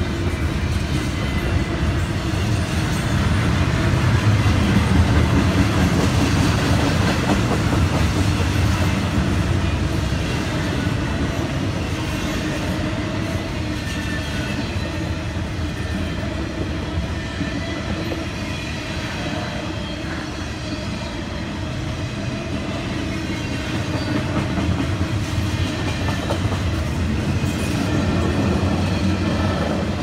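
Norfolk Southern double-stack intermodal freight train rolling past: a steady rumble of steel wheels on rail with clickety-clack over the joints, loudest a few seconds in.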